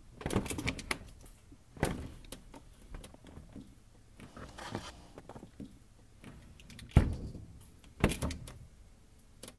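Stainless-steel French-door refrigerator door pulled open with knocks and a rattle, small clicks and rustling as something is taken from a shelf inside, then the door shut with a heavy thunk about seven seconds in and a second thump about a second later.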